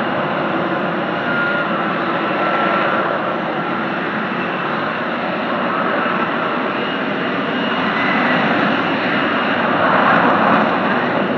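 A fixed-wing aircraft's engine running loudly and steadily, with faint whining tones that shift slightly in pitch, swelling near the end.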